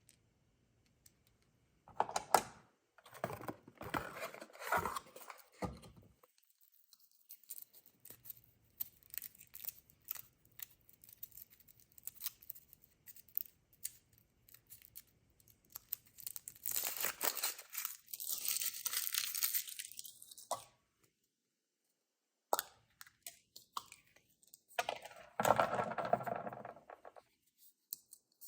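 Kinder Surprise egg packaging being handled and torn open: foil and plastic wrappers crinkling and tearing in three bouts of rustling, with quieter fiddling between.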